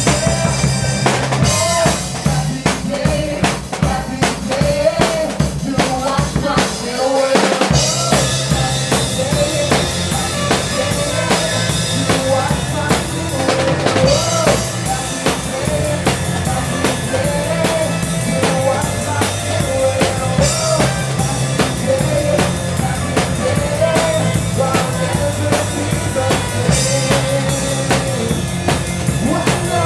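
Live rock praise band playing an instrumental passage without vocals: a drum kit drives it with kick, snare and rimshots over steady bass notes and a wavering lead melody. The bass drops out for a moment about seven seconds in, then the full band comes back in.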